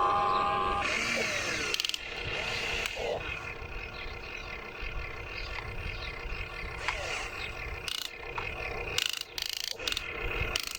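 Small electric motors and gearboxes of a radio-controlled excavator or construction truck whirring, with changes in pitch and scattered clicks and knocks.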